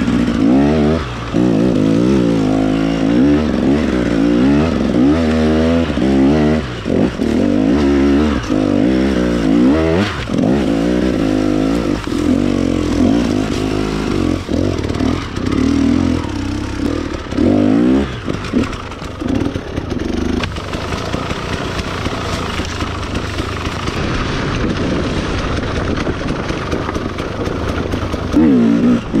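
Dirt bike engine revving hard as it is ridden, its pitch climbing and dropping over and over every second or two. In roughly the last ten seconds the engine note fades under a steadier rushing noise.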